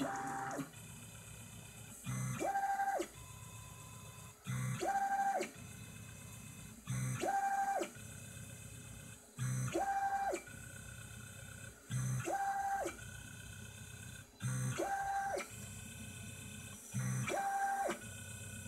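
Stepper motors of a small CNC mill running a PCB auto-levelling probe cycle. The motors whine in a repeating cycle about every two and a half seconds: a short low hum, then a tone that ramps up, holds about half a second and ramps back down. Between the moves there is a steady, fainter motor whine.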